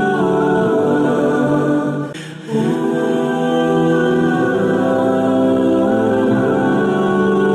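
Wordless a cappella vocal music of layered voices holding long, sustained notes, with a short dip in loudness about two seconds in.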